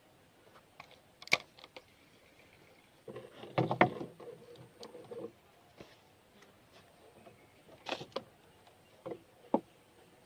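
Scattered sharp knocks and rattling, as of things being handled and bumped against hard surfaces. The loudest is a cluster of thumps and rattles about three to five seconds in, with single knocks near the start and twice near the end.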